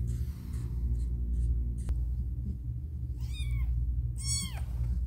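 Newborn kitten mewing: two short, high-pitched cries that rise and fall, about three and four seconds in.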